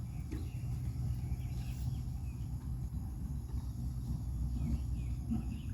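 Outdoor ambience: a steady low rumble with faint, scattered chirping above it.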